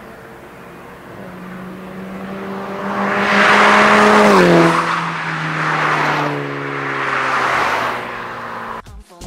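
VW Scirocco 2.0 TSI turbocharged four-cylinder with an iPE valvetronic exhaust (cat-pipe and valvetronic muffler) driving past at a steady engine speed. The exhaust note grows louder as the car approaches, drops in pitch as it passes about four and a half seconds in, then fades as it drives away.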